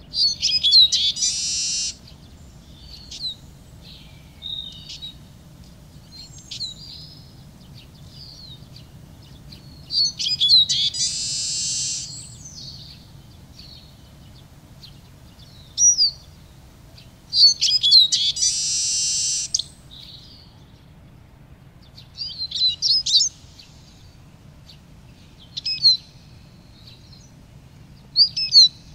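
Eurasian siskin singing: three loud twittering song phrases about eight seconds apart, each ending in a drawn-out buzzy note, with short high chirps and trills between them.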